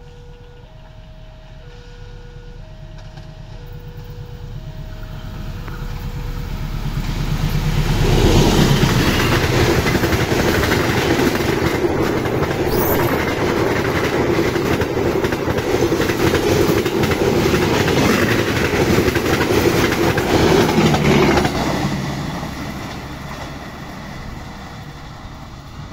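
A level-crossing warning signal sounds two alternating electronic notes while a train approaches, growing louder. The train passes at speed from about 8 seconds in, its wheels clattering loudly on the rails for about 13 seconds, and the noise fades after it has gone by.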